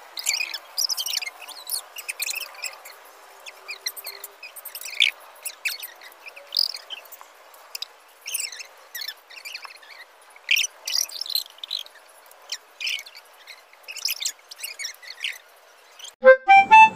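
Birds chirping in short, irregular calls over a faint hiss. Near the end a harmonica-like music tune starts.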